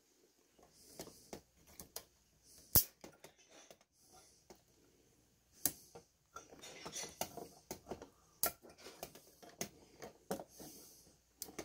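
Three black copper wires being worked into a Wago 221 three-conductor lever connector: scattered sharp clicks, the loudest about three seconds in, among quieter rustling and handling of the wires.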